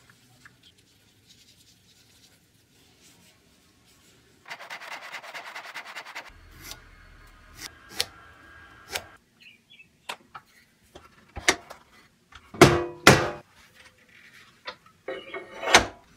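Workshop handling noises: a couple of seconds of scratchy rubbing, then scattered clicks and sharp knocks as hand tools and wooden parts are handled and set down. A pair of loud knocks comes about three-quarters of the way through, and another near the end.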